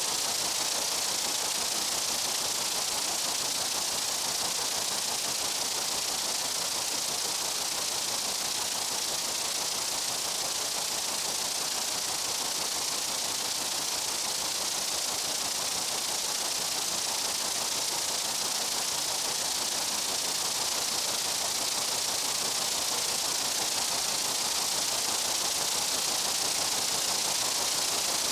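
Steady, unbroken insect buzzing, a high hiss-like drone that holds level throughout, with no separate calls or pauses.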